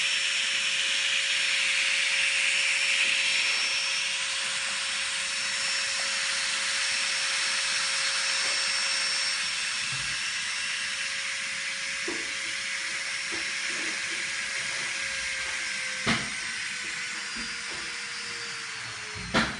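Strong 210/102L electric nail drill running at high speed: a steady high whine with a hiss over it. In the last few seconds the whine slowly falls in pitch as the drill slows, and there are two sharp clicks near the end.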